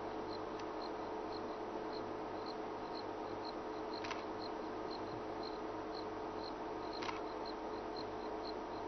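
Bush insects chirping steadily, a short high chirp repeating about twice a second over a steady low hum, with two faint clicks, one about four seconds in and one about seven seconds in.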